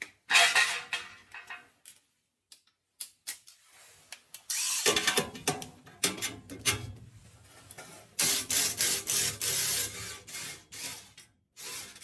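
Power screwdriver whirring in three main short runs, with clicks and clatter of tools and metal, as screws are worked on a furnace's sheet-metal panels.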